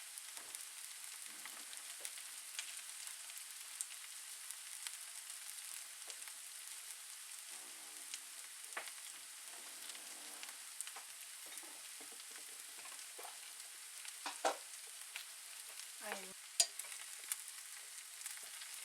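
Food frying in a pan: a steady sizzle with small crackles and pops. A couple of sharp clinks come near the end.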